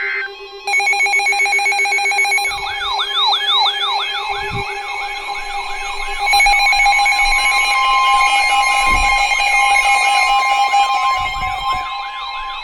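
Emergency Alert System alert tones for a flash flood warning: steady attention tones with a quickly repeating rising siren-like sweep laid over them from about two and a half seconds in, after a brief rapid buzzing pulse train about a second in.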